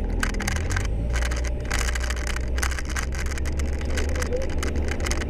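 Sherp amphibious ATV heard from inside its cabin on the move: the diesel engine drones low and steady, under constant irregular rattling and knocking of the cabin.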